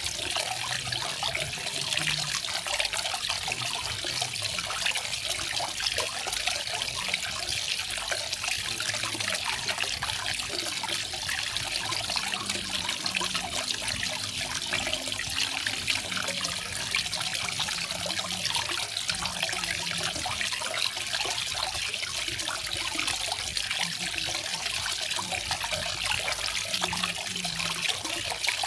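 Garden waterfall: water falling and splashing in a steady, unbroken rush with a bright, hissy edge.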